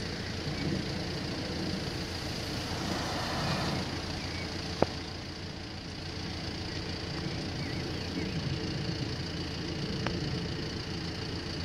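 Steady low rumble and hiss of background engine and road noise, with one sharp click about five seconds in and a fainter click about ten seconds in.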